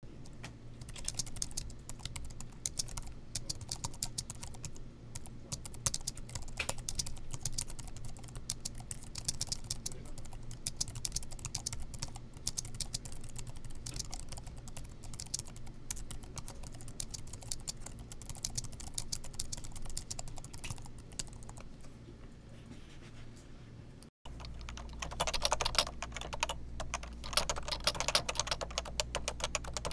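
Typing on an Apple aluminum "chiclet" keyboard: a quick, irregular run of light, high-pitched taps from its low-profile scissor-switch keys. About 24 seconds in it cuts to typing on a Topre Realforce keyboard, whose capacitive rubber-dome switches give louder, fuller and lower clacks.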